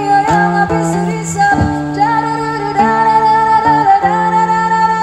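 A woman singing long, drawn-out notes over a plucked acoustic guitar.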